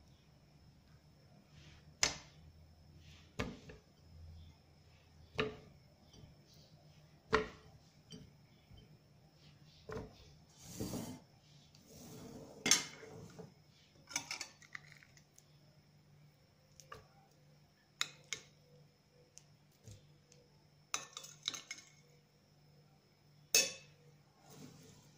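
Dishes and kitchen utensils being handled: a dozen or so separate clinks and knocks at irregular intervals, a few seconds apart.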